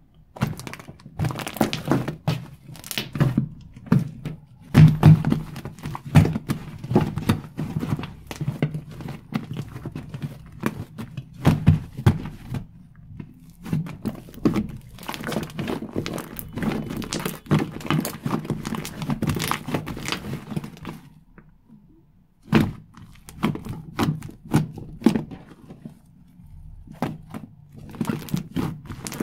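A big batch of fluffy shaving-foam slime being squished, poked and kneaded by hand: a dense run of irregular squelches and sharp crackling pops. It pauses briefly about two-thirds of the way through.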